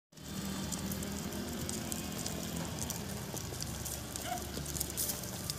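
Many hooves of a flock of sheep and goats pattering and clicking on a paved road, over a low steady hum.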